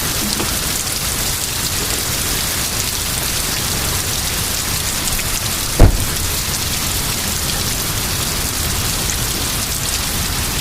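Heavy rain pouring steadily during a thunderstorm, with a single sharp thump a little under six seconds in.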